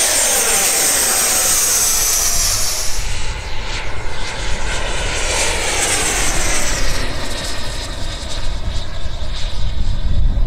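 Electric ducted fan of a Sebart mini Avanti S RC jet (90 mm WeMoTec Midi Evo fan, HET Typhoon motor on 12S) in flight: a loud, high whine that slides down in pitch as the jet flies past. It swells again a few seconds in, then thins out near the end as the jet moves away, leaving a low rumble.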